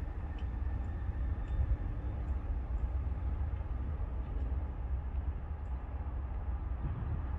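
Distant approaching diesel freight train, heard as a steady low rumble with faint ticks over it.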